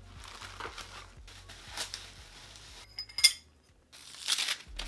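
A clear plastic box of pens being handled and opened: soft plastic rustling and clicking, with one sharp, bright clink about three seconds in.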